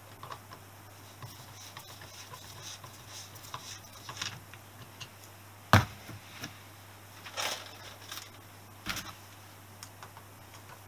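Screwdriver working the screws of a Honda XL250S engine's aluminium generator side cover: scattered small metal clicks and scrapes, with one sharp click about halfway through and a longer scrape soon after.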